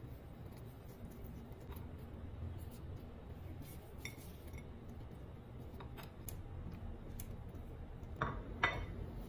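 Quiet kitchen handling: a few light taps as raw potato sticks are laid onto a plate, then two sharper clinks of a ceramic plate near the end, over a low steady hum.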